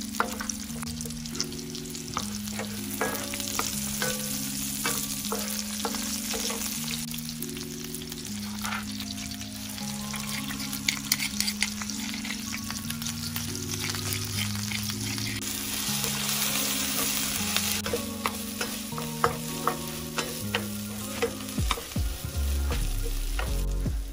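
Red onion, spring onion, pounded lemongrass paste and dried red chillies sizzling in hot oil in a wok, stirred and scraped with a wooden spatula, with frequent crackles and scrapes over a steady sizzle.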